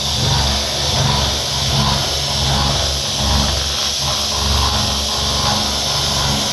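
CNC milling machine rough-cutting: the spindle and cutter run continuously with a broad cutting hiss over a low hum that swells and fades every second or so.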